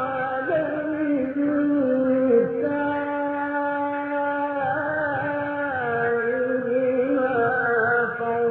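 A male Quran reciter chanting in the melodic mujawwad style, drawing out long held notes with slow ornamented turns in pitch.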